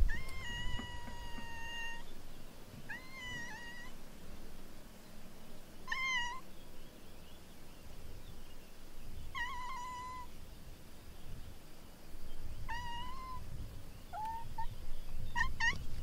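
An animal giving seven high, pitched calls: a steady one of nearly two seconds at the start, then shorter calls every few seconds, several with a quick rising start.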